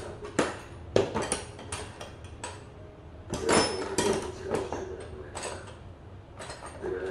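Metal hand tools clinking and clattering against each other in a plastic tool case as they are rummaged through: a run of irregular clinks and knocks.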